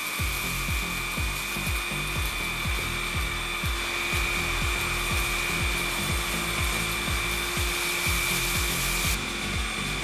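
Xiaomi Dreame V11 cordless stick vacuum running, a steady motor whine with airflow hiss that drops a little about nine seconds in, over background music with a steady beat.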